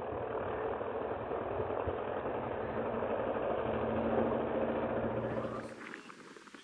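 A model tow plane's engine running steadily, its pitch rising slightly about four seconds in, then fading away near the end.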